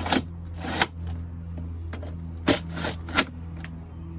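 A few sharp clicks and scrapes of a hand tool on the bolts holding the ATV's plastic body panels as they are tightened down.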